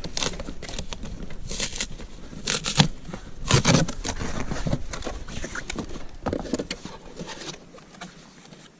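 Cardboard box and plastic packaging being opened and handled: rustling and scraping, with a few louder bursts in the first four seconds, then quieter handling.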